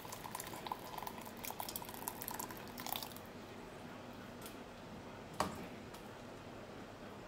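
Spoon working in a bowl of egg drop soup: small clinks and dripping, with one sharper clink about five and a half seconds in.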